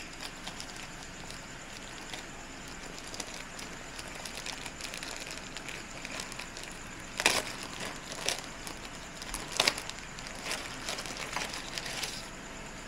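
Crinkling and rustling of a thin translucent plastic protective sleeve being handled and pulled off a drone. There are two sharp louder crackles, about seven and nine and a half seconds in, and lighter crackles until near the end.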